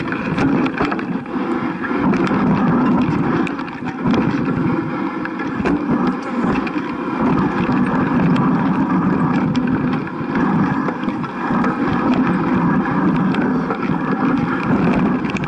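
Steady wind rush and rumble on an action camera carried down a rough forest trail, with frequent small knocks and rattles from the ride over bumps.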